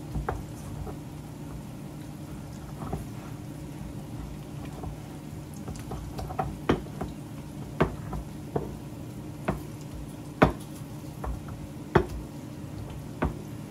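Tomatoes and dried chiles cooking in a hot pan: a sizzle with sharp, irregular pops about once a second as the tomato juice spatters. A steady low hum runs underneath.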